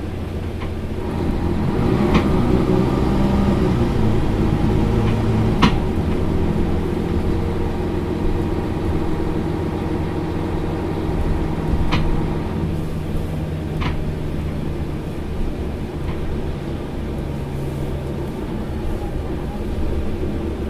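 Mercedes-Benz Citaro Facelift LE city bus engine running, heard from inside the passenger cabin, swelling about two seconds in and then holding steady. A few sharp clicks or knocks sound over it, the strongest about six and twelve seconds in.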